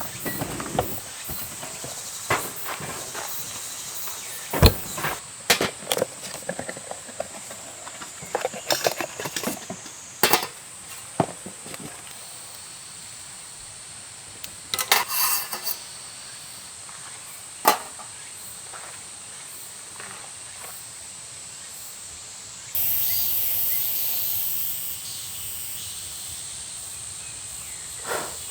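Scattered knocks and clatter of camping gear being handled, over a steady high insect hum. A loud hissing rush starts about three quarters of the way through and fades out over a few seconds.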